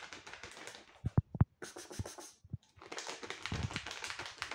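Close rustling and clicking handling noise from a phone being held and moved, with three sharp knocks about a second in and denser rustling and clicking near the end.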